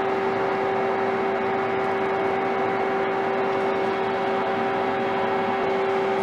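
Steady hum of running machinery: an even whir with a constant mid-pitched tone and a fainter higher one, holding level throughout.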